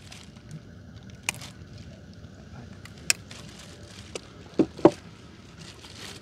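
A few sharp clicks and knocks, then two louder thumps close together about four and a half seconds in, over faint steady background noise: knocks from handling a catch in a small boat.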